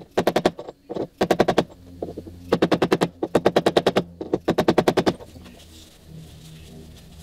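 Five quick bursts of mallet blows on a 2-inch trailer hitch ball driven into the end of a brass drain tube, flaring it against the fiberglass transom. The blows stop about five seconds in.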